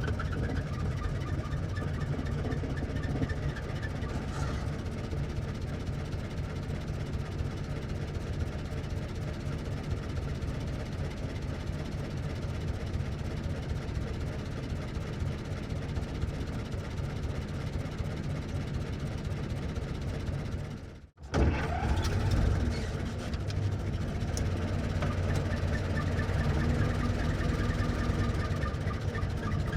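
1924 Ford Model T's four-cylinder engine running steadily with a low, pulsing chug. About two-thirds of the way through it fades out, and another engine take starts abruptly right after.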